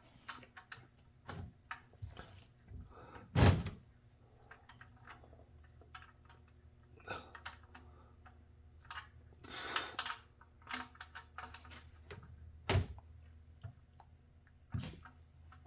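Scattered clicks, knocks and clunks of hand tools working on the oil drain plug under the car, with a loud clunk about three and a half seconds in and a sharp knock near the end.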